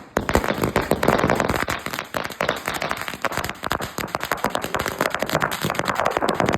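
A 5000-wala firecracker string going off: a continuous rapid chain of sharp cracker bangs, dense and irregular.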